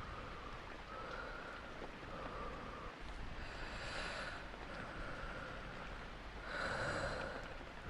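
A person breathing in and out in a slow run of breaths, over the steady hiss of rain. The breaths are strongest about halfway and near the end.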